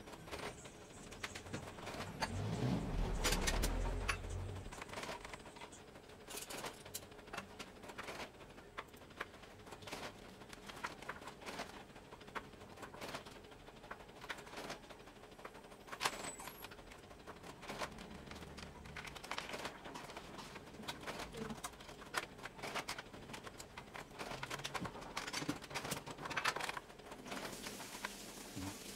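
Stripped-down Epson L120 inkjet printer running and feeding a sheet of paper, its exposed gears and mechanism clicking and knocking. There is a louder low rumble about three seconds in.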